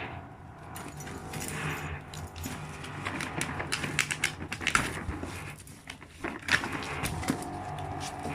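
Rustling packaging and irregular small clicks and knocks of items being handled as a parcel is unpacked, over a steady low background hum.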